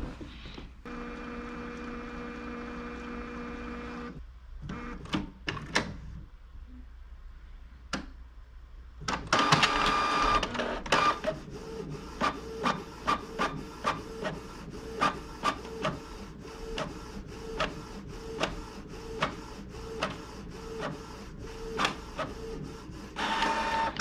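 Canon Pixma TR4520 inkjet printer printing a test page. A steady motor whir comes first, then a few clicks. About nine seconds in, a louder burst of mechanism noise settles into a regular rhythm of short whirring strokes as the page is printed and fed out.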